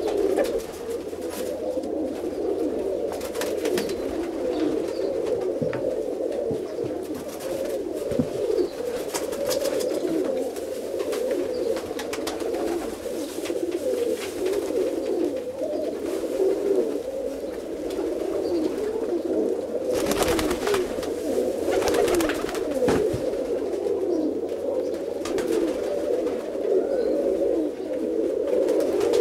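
Many domestic roller pigeons cooing at once, a dense overlapping chorus of coos, with a few short rustles, the clearest about two-thirds of the way through.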